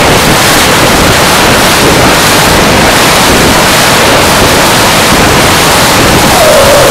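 Wind rushing over an onboard camera on a radio-controlled jet in flight: a loud, steady rushing noise. A faint whine wavers in pitch near the end.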